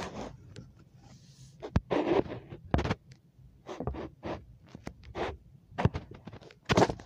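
Hands squeezing and working a lump of store-bought slime with plastic stars in it: irregular clicks and scraping sounds.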